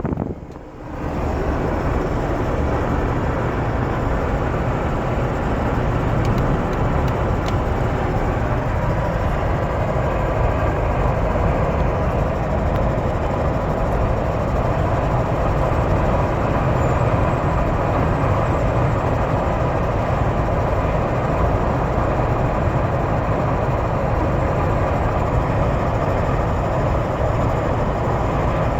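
Steady road and wind noise inside the cabin of a 2007 Jeep Wrangler JK at highway speed, with a steam- or wind-like noise from the center of the dashboard that comes on above 60 mph.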